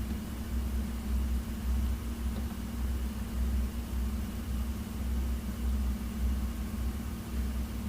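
A steady low hum with no clicks or changes.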